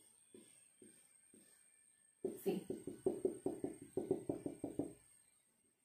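Felt-tip marker on a whiteboard: a few light strokes, then from about two seconds in a quick run of taps, about six a second, as dots are drawn, stopping about five seconds in.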